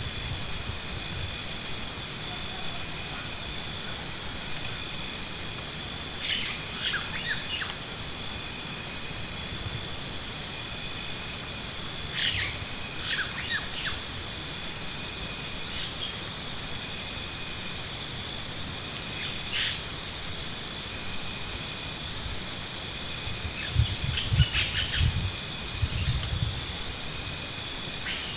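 A high, pulsing insect-like trill that comes in bouts of three to four seconds, over steady high tones, with a few short chirps in between.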